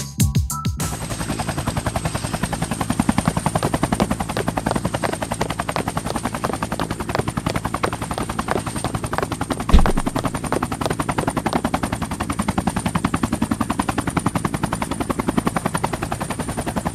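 Helicopter sound effect: rotor blades chopping in a rapid, even beat over a steady high turbine whine. There is one heavy thump about ten seconds in.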